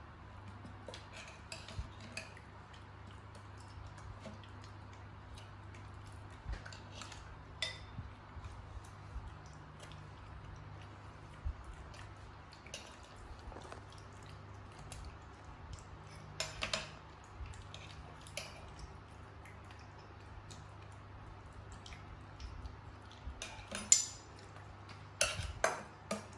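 Scattered clinks and clacks of dishes and utensils being handled, with a sharp clack about 24 seconds in the loudest, over a low steady hum.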